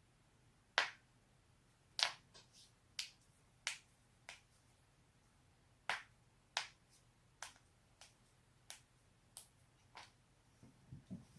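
A person's joints cracking: about fifteen sharp pops and clicks at irregular intervals, the loudest in the first seven seconds and a soft cluster near the end.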